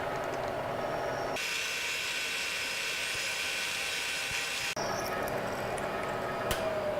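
Bridgeport milling machine running with a 1/4-inch drill bit drilling a hole. For about three seconds in the middle a high-pitched cutting sound takes over, then the steady running hum returns. Near the end there is a sharp click, followed by a tone that falls in pitch.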